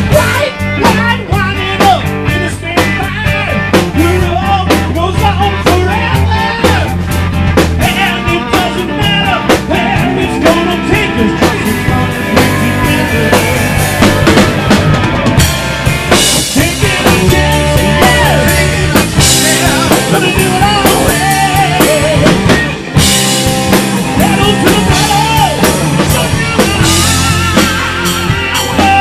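Live rock band playing loudly: drum kit, electric guitar and bass guitar, with cymbal crashes a little past halfway and again about three-quarters through.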